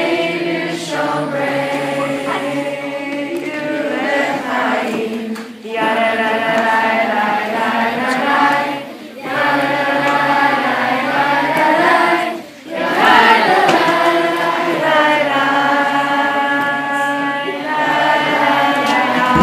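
A group of young voices singing together without accompaniment, in long phrases broken by short pauses.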